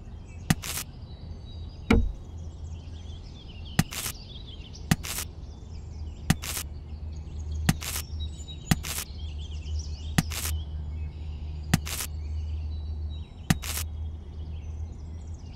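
About ten short, sharp sounds, many in quick pairs, spaced a second or so apart, as toy plastic chili peppers are picked up and loaded into a toy trailer, over a low steady hum and faint bird chirps.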